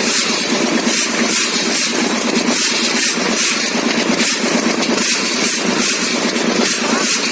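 Engine-like running sound, steady and loud, with a rapid even pulsing in its hiss.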